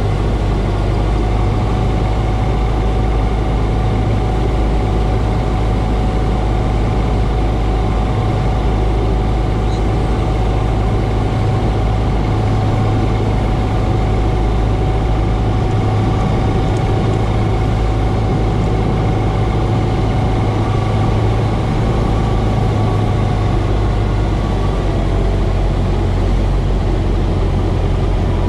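1947 Cessna 140's engine and propeller running steadily in flight, heard from inside the small cabin as a constant loud hum with a steady tone over the wind noise.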